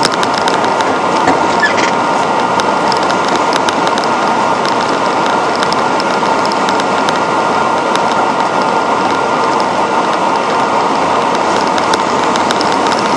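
Steady in-cab noise of a Western Star quad tipper truck on the move: engine and road drone with a constant light rattling and ticking, and a faint steady whine.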